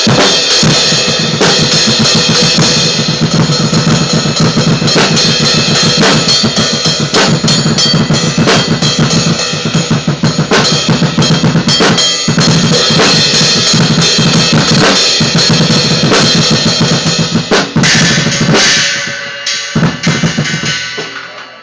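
Acoustic drum kit played with sticks: busy, fast bass drum, snare and cymbal playing. Near the end the drums stop and the cymbals ring on and fade away.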